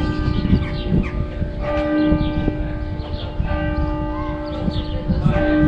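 Church bells ringing, a fresh stroke about every second and three-quarters, each one ringing on into the next.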